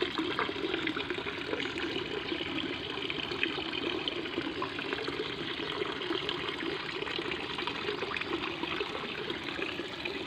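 Shallow, clear stream running over a stony bed: a steady trickling and babbling of water.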